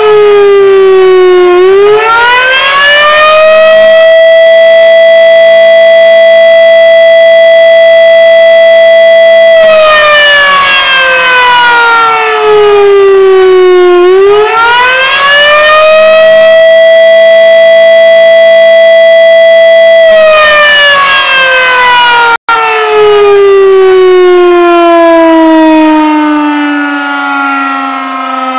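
Volunteer fire station's pole-mounted electromechanical siren (the fire whistle) sounding its alarm call for volunteers: the tone climbs to a steady high pitch and holds for about six seconds, slides down, climbs and holds again, then winds down in a long falling pitch about 20 seconds in.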